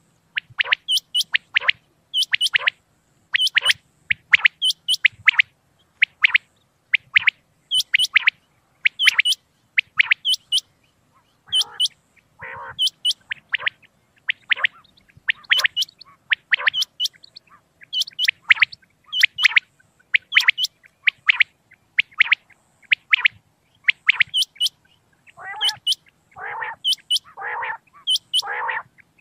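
Common quail calling over and over: short, sharp, high-pitched notes in quick runs of two or three. Near the end lower, rougher calls come in between them.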